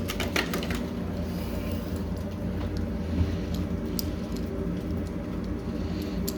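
Small plastic fitting parts and packaging being handled: a cluster of light clicks and rattles at the start, one about four seconds in and a few near the end, over a steady low hum.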